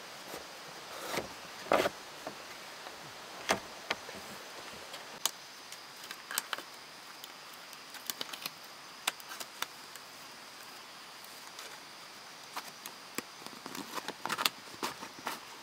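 Irregular light clicks and knocks of objects being handled, over a steady background hiss, with the loudest knocks about two and three and a half seconds in and a quicker run of clicks near the end.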